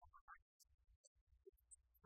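Near silence: a faint, broken low rumble with a few scattered short blips and no audible speech.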